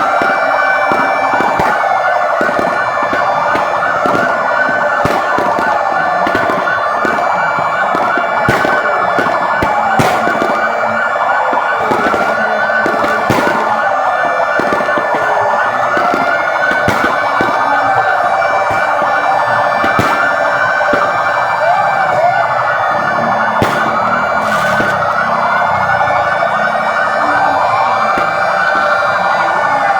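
Several fire engine sirens wailing at once, their rising and falling wails overlapping out of step, with scattered sharp pops throughout.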